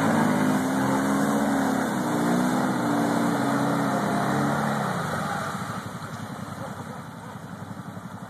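Kawasaki 750 ATV's engine revving hard, its pitch rising and falling, as the quad is towed and driven out of a deep mud hole. About five seconds in it eases off and drops to a lower, steady idle.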